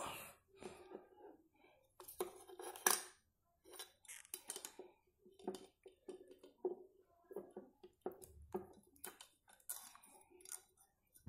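Scattered light clicks and clinks of small parts being handled: the wire leads of an old LED torch head being fitted and touched to a small rechargeable battery's terminals.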